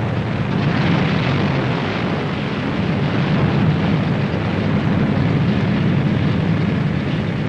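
Engines of a B-17 Flying Fortress, four air-cooled radial engines, running together as a steady low drone that builds over the first second and then holds.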